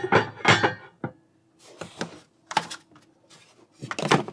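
Hard plastic parts and cardboard packaging of a Starlink kit clattering and scraping as the stand and dish mast are lifted out of their box. A quick run of knocks comes first, then single knocks about a second in and a little past halfway, then another burst near the end.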